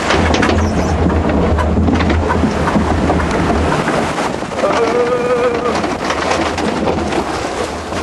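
Rushing, splashing water around a flume-ride boat running along its water channel, with a low rumble that drops away a little before the middle. A brief wavering high tone sounds near the middle.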